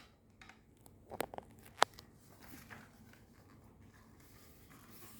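A few short sharp clicks and a light rustle between one and two seconds in, then faint room tone.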